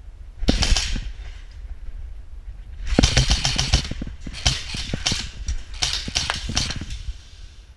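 Airsoft rifle firing four short full-auto bursts of rapid clacking shots, the longest about three seconds in.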